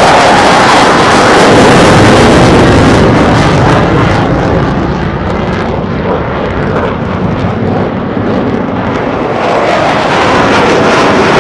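Military jet at an air show making a loud, continuous engine roar. It eases off somewhat midway through, then builds again near the end.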